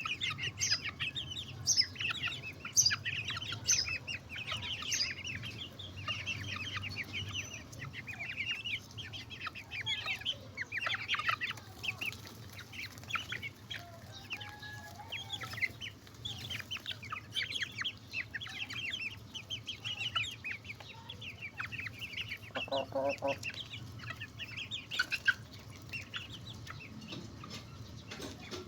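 Chickens clucking and calling: many short calls overlapping throughout, with a steady low hum underneath.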